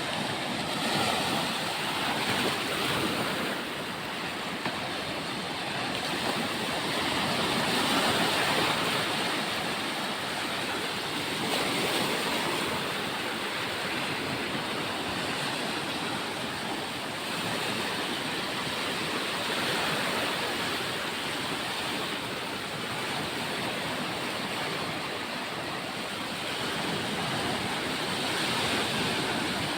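Sea surf washing onto a beach: a steady rush of noise that swells and eases gently every few seconds.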